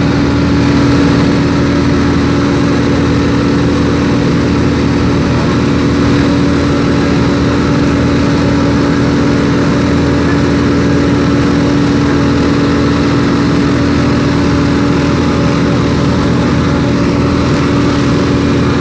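An engine running steadily at one constant speed close by, with a strong, unchanging hum.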